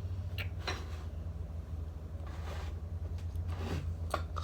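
A steady low hum with a few light clicks and knocks about half a second in and again near the end, from small objects being handled.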